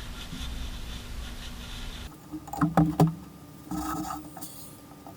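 A few sharp knocks and clinks of motorcycle fork parts being handled on a workbench, the loudest around three seconds in, with a shorter rattle a second later, over a steady workshop hum that drops away about two seconds in.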